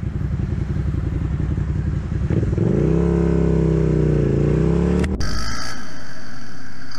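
Motorcycle engine running at low revs, then revving up about two seconds in as the bike accelerates away and holding high revs with a brief dip. It cuts off suddenly a little after five seconds, replaced by a steady rushing noise of riding.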